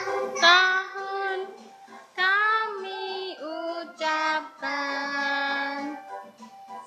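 A child singing a melody in a high voice, sliding between notes and holding one long note about five seconds in.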